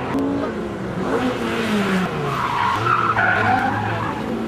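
A vehicle's engine revving up and down while its tyres squeal and skid through a tight pylon turn, with the squeal loudest about three seconds in.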